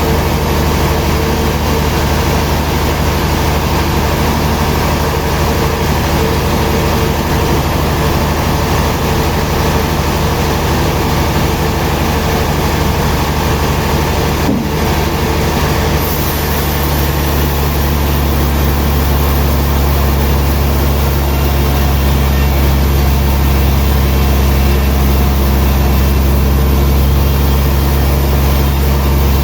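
Heavy machinery running steadily, a loud, even engine-like hum made of several steady low tones. About halfway through the sound shifts, and a deeper, stronger hum continues.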